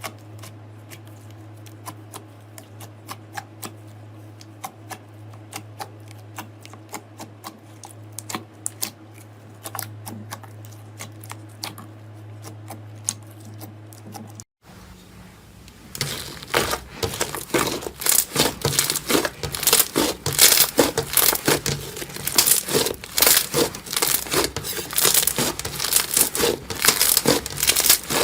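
Slime worked by hand. At first there are sparse, faint clicks and pops over a steady low hum. Then, after a cut, comes loud, dense crackling and popping as the slime is squeezed and pressed.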